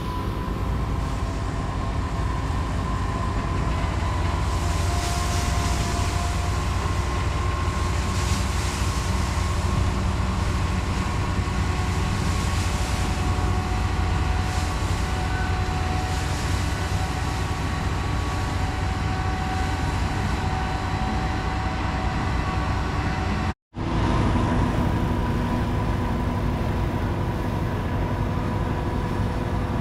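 Heavy corn silage harvesting machinery running steadily: a deep engine drone with a few steady whines on top. The sound briefly cuts out partway through.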